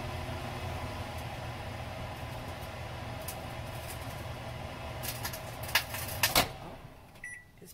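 A microwave oven hums steadily as it runs. A few clicks come near the end, the last and loudest as it stops, and the hum dies away. A short electronic beep follows.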